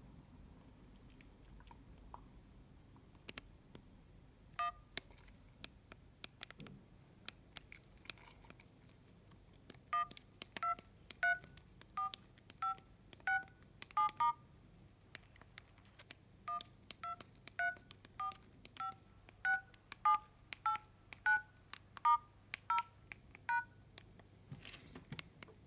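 Keys on a Mobiwire Sakari mobile phone being pressed, playing dual-tone keypad beeps like telephone dialling tones. At first there are only a few faint key clicks. Then come two runs of short beeps, about one and a half a second, each beep a different tone pair, with a short pause between the runs.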